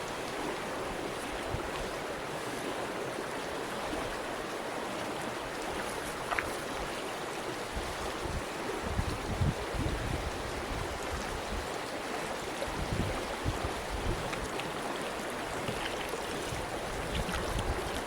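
A steady rushing noise, like flowing water, runs throughout. From about halfway through, low gusts of wind rumble on the microphone, with a few faint clicks.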